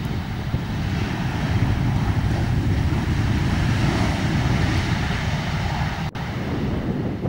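Jet engine noise from a Boeing 737 rolling out after touchdown, swelling through the middle, heard under heavy wind rumble on the microphone. The sound cuts out briefly about six seconds in.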